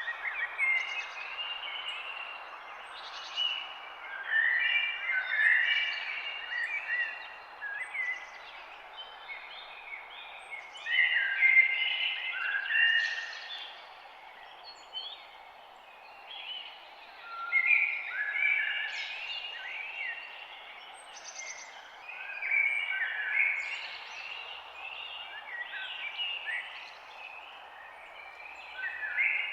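Songbirds chirping and singing in many short, overlapping phrases, over a steady background hiss.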